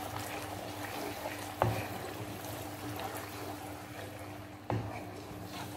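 Wooden spoon stirring a tomato sauce as it cooks in a non-stick frying pan, a soft wet swishing with two sharp knocks of the spoon against the pan, one about a second and a half in and one near the end.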